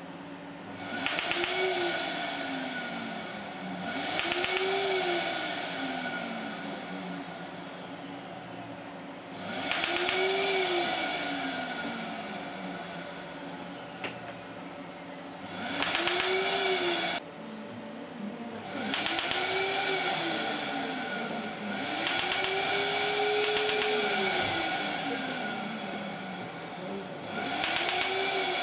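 Asclepion MCL30 Dermablate fractional erbium laser working on skin in repeated bursts of a few seconds, seven in all. Each burst is a hissing noise with a whirr that rises and then falls in pitch.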